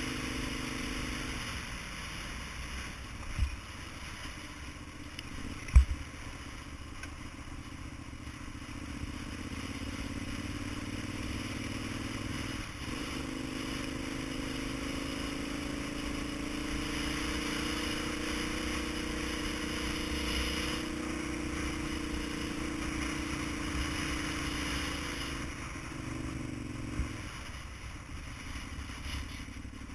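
A vehicle engine running on the move. Its pitch falls early on, climbs and holds through the middle, then falls again near the end. A few sharp knocks cut through it, the loudest about six seconds in.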